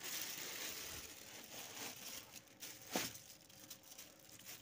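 Plastic wrapping and cardboard rustling and crinkling as an item is unpacked from its box, with one sharp knock about three seconds in.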